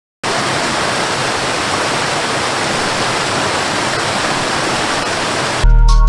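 Steady rush of water falling over a rocky cascade waterfall, starting abruptly just after the start and cut off suddenly near the end, when music with a beat comes in.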